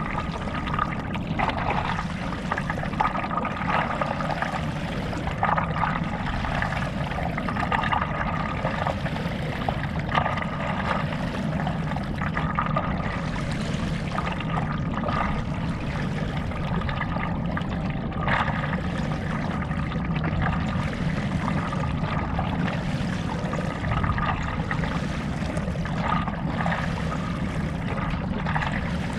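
Paddleboard paddle strokes in lake water: the blade splashes in and water trickles off it, a stroke every second or two, over steady water noise around the board.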